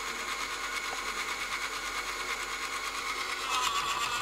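Small brushed DC motor with a flywheel running with a steady whir. About three and a half seconds in it turns louder and rougher as a hand grips it and loads it, the load that raises its current draw.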